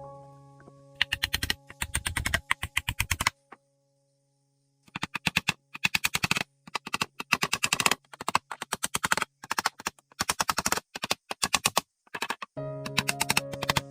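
Music with held low chords and runs of rapid, sharp staccato hits, about a second or two at a time, separated by short gaps.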